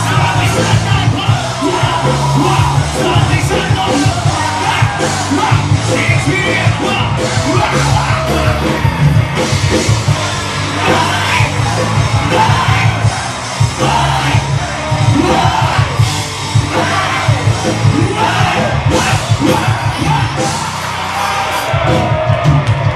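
A live rock band playing loud, with a heavy, steady bass, while a crowd of men yells and sings along.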